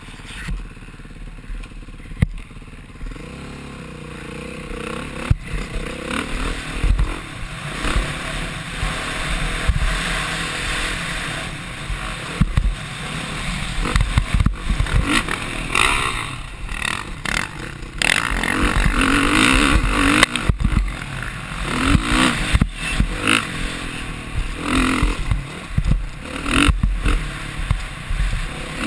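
Dirt bike engine being ridden hard, its revs rising and falling over and over, with wind rushing over the helmet-mounted camera and scattered sharp knocks.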